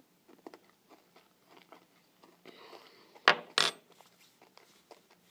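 Small clicking mouth and spoon noises of someone eating a spoonful, then two loud sharp smacks about three seconds in, a third of a second apart.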